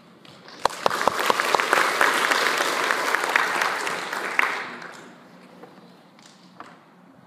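Audience applauding, starting about half a second in and dying away a few seconds later.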